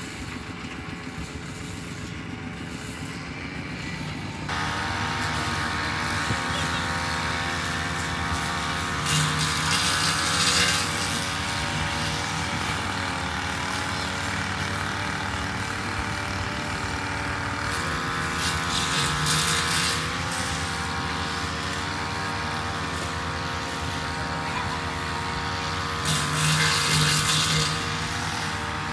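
Two-stroke backpack brush cutter engine running, fainter for the first few seconds and then close. The engine picks up revs three times, each swell brighter and louder as the cutter works through the grass.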